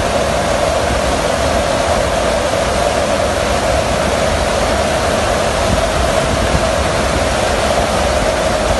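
Steady loud rush of air and engine drone inside the cargo hold of a transport aircraft flying with its rear ramp open, with a steady hum running through it.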